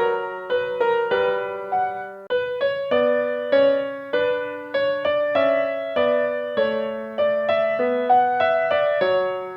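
Background piano music: a gentle melody of plucked-sounding notes, each starting sharply and dying away.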